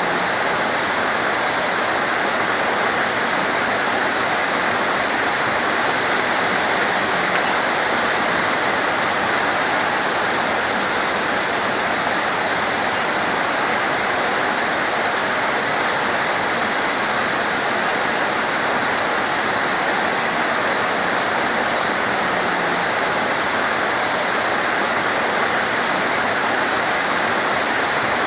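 Torrential rain falling steadily: a dense, even hiss with no let-up.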